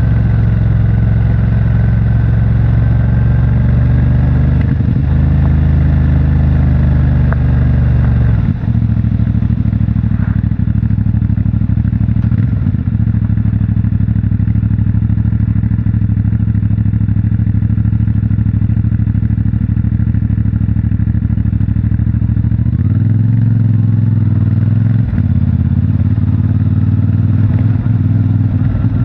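CFMOTO 450MT's parallel-twin engine and stock exhaust running under way, mostly at a steady note. The note changes a few times, with a brief dip about eight and a half seconds in and further changes near the end.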